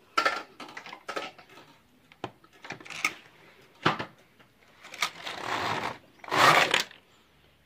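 Passap knitting machine's lock carriage pushed by hand along the needle beds, giving a series of sliding rasps and clicks. The last two passes, about five and six and a half seconds in, are the longest and loudest.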